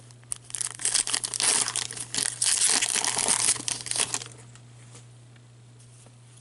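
Foil wrapper of a hockey card pack crinkling and tearing as it is ripped open by hand, for about four seconds, then it stops.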